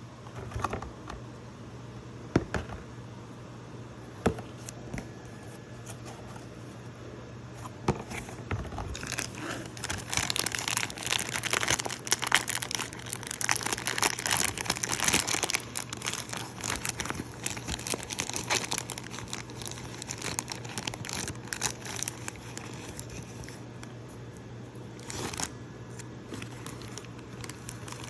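Packaging being unwrapped by hand, crinkling and tearing. A few sharp knocks come in the first eight seconds, then dense crinkling runs from about nine seconds in to near the end, with a short burst again toward the end.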